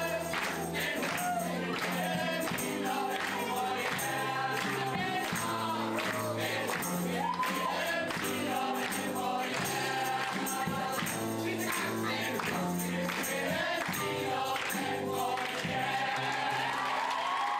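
A choir of mixed voices singing a song with a small live band, an acoustic guitar among the instruments, and a steady beat of percussion strokes.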